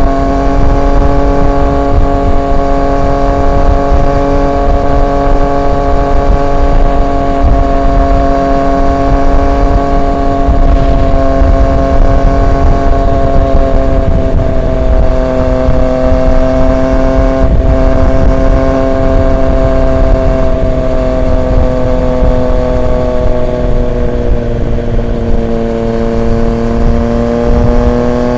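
Triumph Street Triple 765 RX's inline three-cylinder engine through an SC Project S1 aftermarket exhaust, cruising at a nearly steady engine speed. The pitch drifts up a little midway, eases off, then picks up again near the end, over a low rush of wind and road noise.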